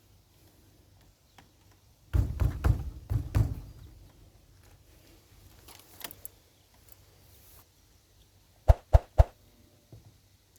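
Hard objects being handled on a work surface: a short clatter of knocks and rattles about two seconds in, then three sharp knocks in quick succession near the end.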